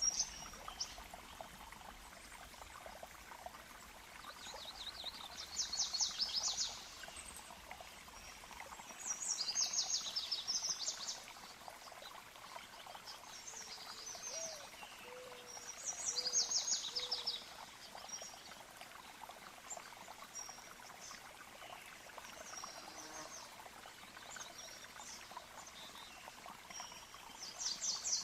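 Stream or running water flowing steadily, with a songbird singing a short rapid trill four times, several seconds apart. A few faint low whistled notes come between the trills.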